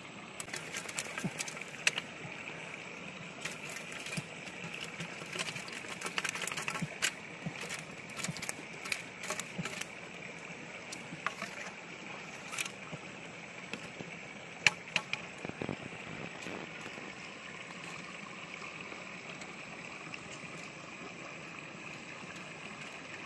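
Irregular clicks and taps of stiff plastic and wire being handled: slotted strips of blue PVC pipe bound with wire, worked and fitted by hand. They come in clusters during the first half and thin out later, over a steady background hiss.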